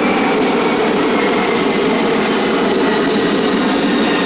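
Small boat motor running at a steady speed, a continuous drone with no change in pitch.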